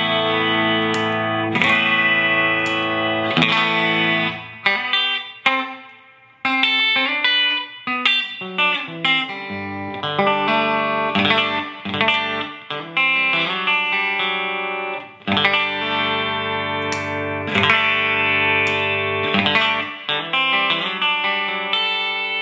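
Electric guitar (a Telecaster on its bridge pickup) played through a DOD 280A compressor pedal into a Fender Blues Deluxe amp on its clean channel: strummed chords ringing out, then sparse single notes and busier chord riffs, ending on a held chord.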